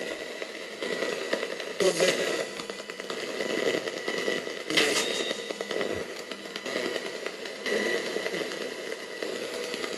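NanocomS Coffin Edition spirit box sweeping through radio frequencies: choppy, crackling static with chopped-up fragments of broadcast sound, flaring louder about two and five seconds in.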